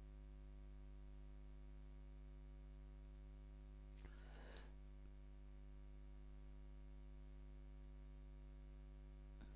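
Near silence: a steady low electrical mains hum in the recording, with one brief faint click-like noise about four seconds in.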